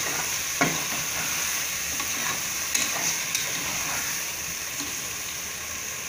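Chopped mushrooms, tomatoes and onions sizzling in hot oil in an aluminium pressure cooker as a metal spatula stirs them, with a steady hiss and a few sharp scrapes of the spatula against the pot.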